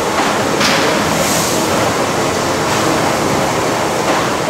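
Hathorn Davey triple-expansion steam engine running: a loud, steady rush of steam and machinery noise, with surges of hiss about half a second in and again near the end.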